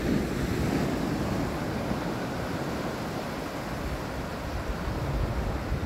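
Small surf breaking and washing up a flat sandy beach, a steady rushing wash, with wind rumbling on the microphone.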